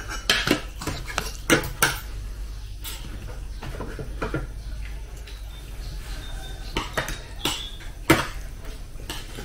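Metal spoon and fork clinking and scraping against a plate while scooping rice and eggs: scattered sharp clinks, several close together in the first two seconds and a few more near the end.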